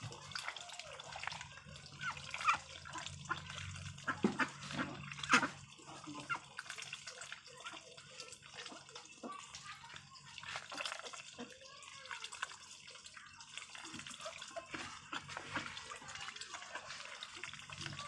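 A flock of domestic ducks feeding at close range, their bills dabbling and pecking at the ground with many quick, wet clicks and slurps, a few louder ones a couple of seconds in.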